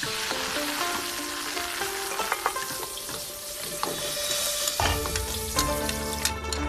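Food frying with a loud hissing sizzle over background music; the sizzle drops away about five seconds in as a deep bass comes into the music.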